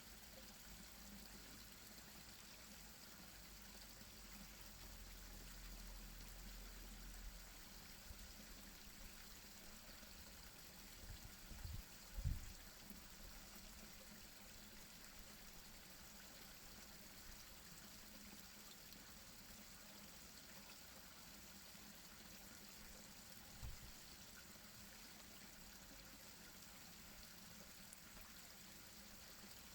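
Small garden-pond waterfall trickling faintly and steadily into the pond. A dull low bump comes about twelve seconds in, and a smaller one later.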